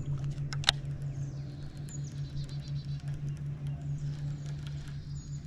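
Baitcasting reel being cranked to retrieve a swimbait, a soft rapid ticking over a steady, low, pulsing hum. There is one sharp click a little before a second in, and a few high bird chirps.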